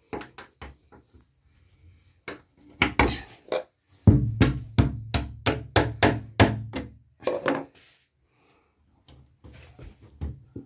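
Door hinge being tapped with the jaws of a pair of pliers used as a hammer, knocking the stiff hinge into place. There are a few scattered knocks, then a quick even run of about four taps a second for three seconds, and a couple more after.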